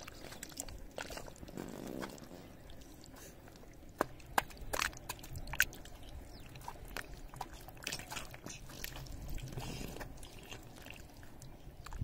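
A hoe chopping into wet, clumpy mud: scattered soft thuds, clicks and squelches, with a few sharper knocks in the middle.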